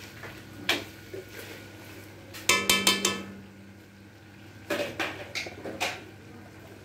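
Metal clanks against a metal wok while chicken is stirred in it: a knock just under a second in, a quick run of about five ringing strikes at two and a half to three seconds, and a few more clanks near the end.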